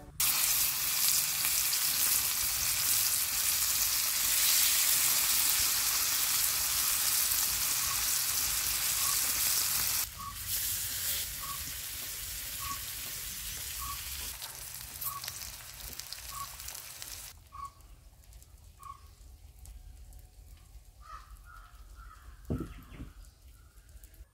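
Food sizzling as it fries in hot oil, loud for about ten seconds, then dropping suddenly to a softer sizzle that dies away. A faint short chirp repeats about once a second through the middle.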